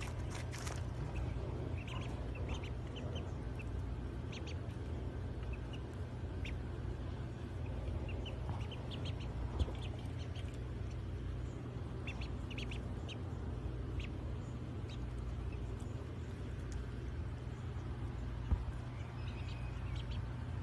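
Ducklings peeping: scattered short, high peeps over a steady low hum.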